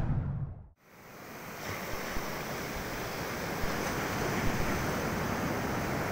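Surf washing up a sandy beach, heard as a steady rush, with wind on the phone's microphone. It fades in about a second in, after the end of a piece of music fades out.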